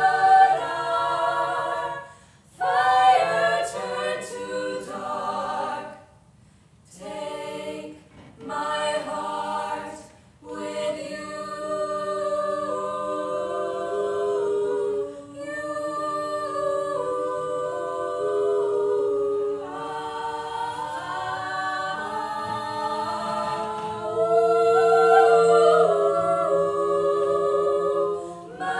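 Women's a cappella group singing in multi-part harmony, with several short breaks in the first ten seconds, then held chords that grow louder near the end.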